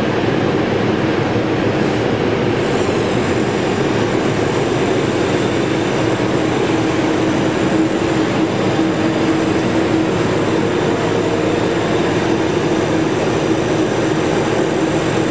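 Steady, loud machine hum and rush from the Sample Manipulation System's actuator drive, joined about two and a half seconds in by a thin, high whine, as the elevator is driven round to the locking lever.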